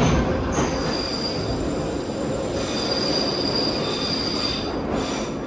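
Moscow Metro retro train of Nomernoy-type cars running on the rails with a constant rumble, its wheels squealing in high steady tones, first about half a second in for a second or so, then again from about two and a half seconds until near the end.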